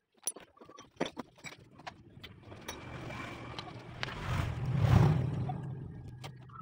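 A passing motor vehicle's engine swells to a peak about five seconds in, then fades. Before it, sharp clicks and knocks of metal engine parts being handled.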